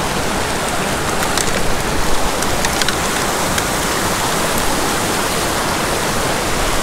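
Small mountain creek rushing steadily over little cascades and rocks, close to the microphone, with a few brief sharp ticks in the first half.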